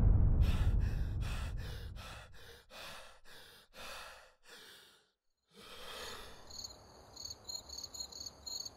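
A deep music rumble fades out, then a run of quick breaths in and out that fade away. After a short silence comes one longer breath, then crickets start chirping, about three chirps a second, from about six and a half seconds in.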